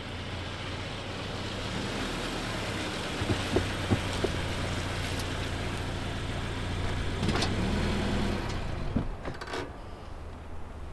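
Compact SUV engine running as the car rolls slowly onto grass and stops; the engine is switched off a little after the middle, and a few short clicks follow.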